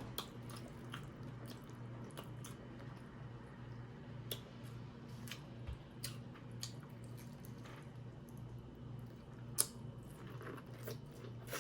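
Close-miked eating sounds: chewing and wet, squishy mouth noises with scattered small clicks, one sharper click about two-thirds of the way through, over a faint steady low hum.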